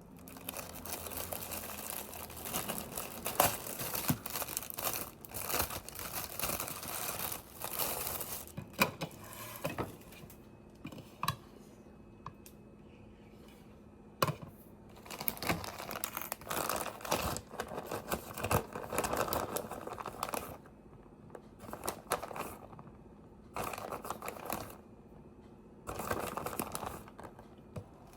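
Crinkling and tearing, as of something like packaging being handled by hand, in irregular bursts with a few sharp clicks and short pauses, over a faint steady hum.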